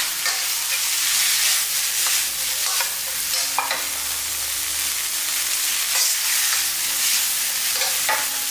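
Green beans and shredded pork sizzling in a wok as they are stir-fried, with a steady hiss and a few sharp scrapes of the spatula against the pan.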